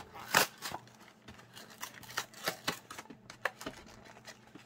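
Small cardboard box being opened by hand: flaps and inner card pulled and flexed, giving a run of short sharp clicks and rustles. The loudest snap comes a little under half a second in.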